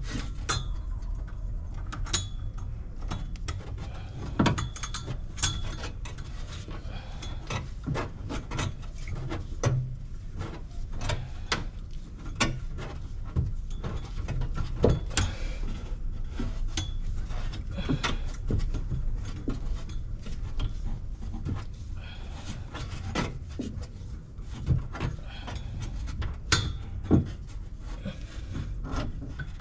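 Irregular clicks, clinks and short scraping sounds of hand work with small hard parts, over a steady low rumble.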